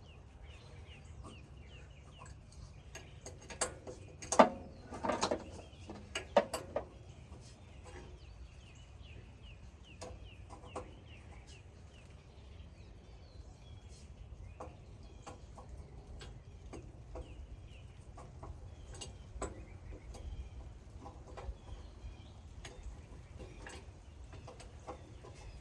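A cluster of sharp knocks and clatters about four to seven seconds in, then scattered lighter clicks, over a low steady hum, with faint bird calls in the background.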